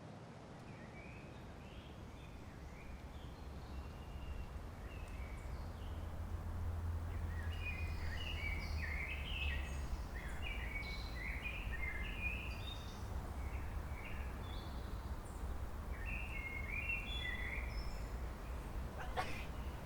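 Birds chirping in many short notes, busier from about six seconds in, over a steady low rumble. A single sharp click near the end.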